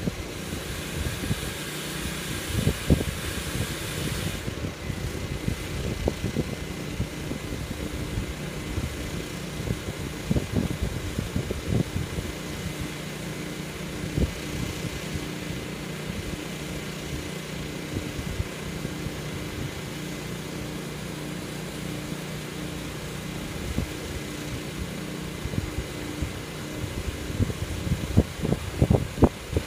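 Large dry-mist cooling fan running steadily with a faint hum, wind gusting on the microphone. A high hiss drops away about four seconds in.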